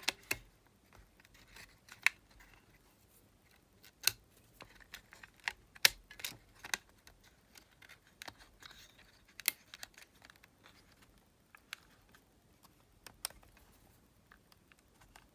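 Irregular sharp clicks and taps of small plastic and metal parts: the main circuit board of a Sony TCM-450 cassette recorder being handled and pressed back into its frame.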